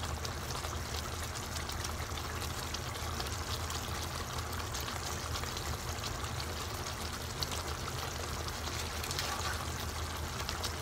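Fish curry gravy simmering in a nonstick frying pan: a steady bubbling sizzle with a few faint pops.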